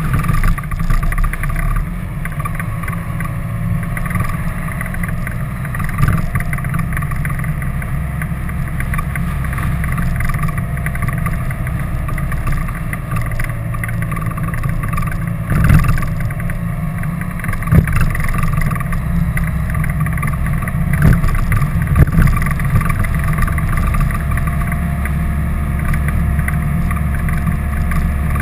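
Vehicle on the move: a steady, muffled low rumble of engine, tyres and wind as picked up by a vehicle-mounted camera, with a few sharp knocks in the middle.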